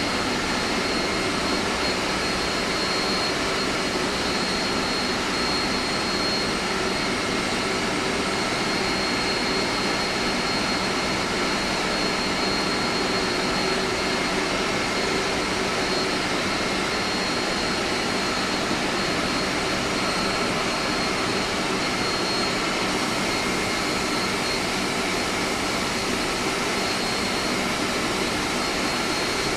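Steady running noise of an air-conditioning plant room's machinery, chillers and pumps, with a constant high whine over a broad hum.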